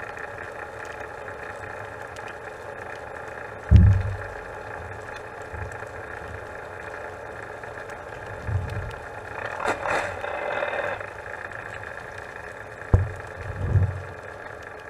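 Muffled sound picked up by a camera held underwater: a steady engine-like hum, broken by several dull low thumps and one short rushing burst partway through.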